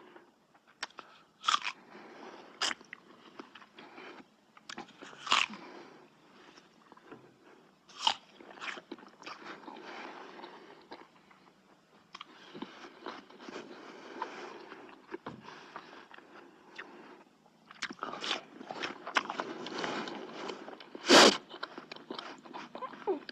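A person biting and chewing crunchy food: irregular crisp crunches with quieter chewing between them, and one loud crunch near the end.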